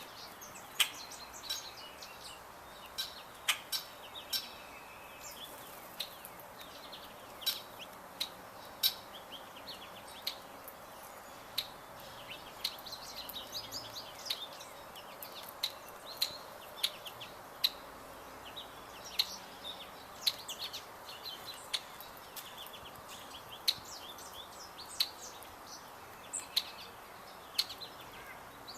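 Small songbirds at a feeder chirping and twittering throughout, with frequent sharp taps or clicks standing out above the calls.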